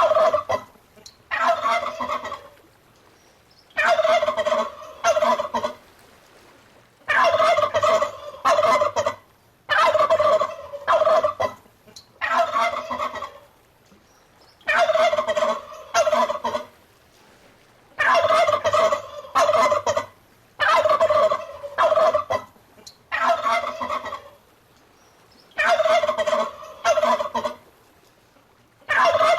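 Domestic turkey gobbling over and over, a rattling gobble every two to three seconds, some coming in quick pairs.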